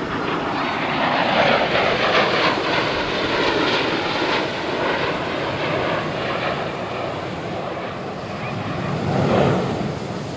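Jet engines of two F-16 Fighting Falcon fighters passing close by, a loud rushing roar whose pitch falls as they go past, swelling again about nine seconds in.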